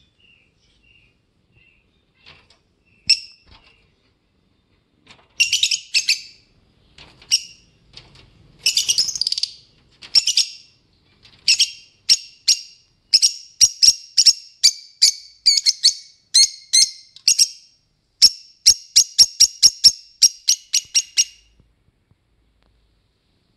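Fischer's lovebirds chirping with sharp, high-pitched calls. A few scattered chirps come first, then a few clusters. From about halfway there is a fast, even run of chirps, two or three a second, which stops a couple of seconds before the end.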